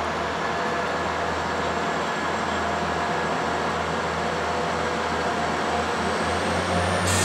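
A train running past on the rails, a steady rumble and hiss with a low hum and a few steady tones. About seven seconds in it gets louder, with sharp high-pitched metallic sounds.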